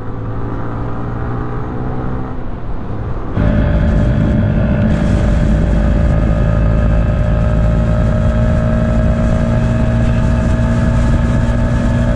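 Motorcycle engine running steadily while riding at cruising speed, with road and wind noise. About three seconds in the sound suddenly gets louder and fuller, and stays steady after that.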